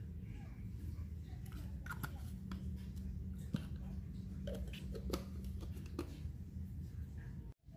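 A handful of light, scattered clicks of a metal spoon against a small glass jar as ground pepper is spooned in, over a steady low hum. The sound cuts out for a moment near the end.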